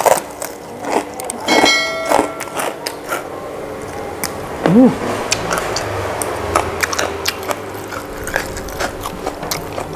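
Close-miked eating sounds: chewing and wet mouth clicks and smacks as chicken and rice are eaten by hand, with two brief pitched sounds, one about two seconds in and one about halfway through.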